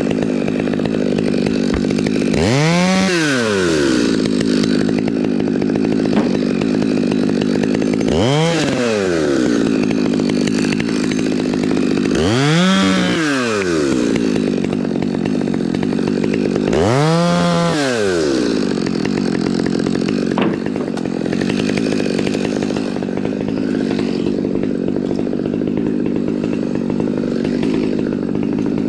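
Top-handle chainsaw revved four times, each rev climbing in pitch and falling back over a second or two, with a steady engine drone underneath between revs.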